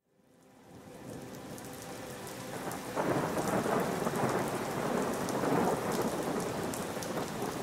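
Recording of heavy rain with thunder, fading in from silence and growing louder about three seconds in.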